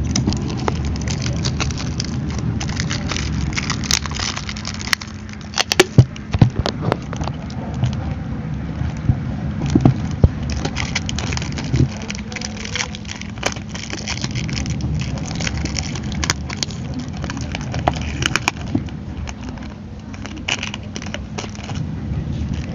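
Aluminium foil wrapper and sticky tape crinkling and crackling as they are handled and pressed onto a plastic bottle, with scattered sharp clicks, over a steady low rumble.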